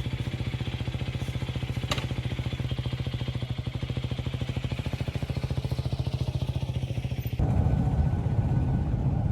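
Husqvarna Svartpilen 250 single-cylinder engine running with an even, rapid pulse, with one sharp click about two seconds in. About seven seconds in the sound changes suddenly to a louder, rougher engine note.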